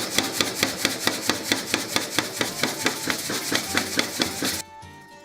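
Power hammer striking a hot 1-inch square steel bar in a fast, even rhythm of about six blows a second, drawing the bar out. It stops abruptly near the end, and plucked-string music takes over.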